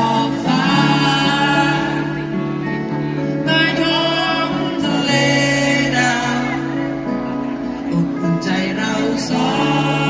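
A live acoustic band performing: acoustic guitars played under sung vocals.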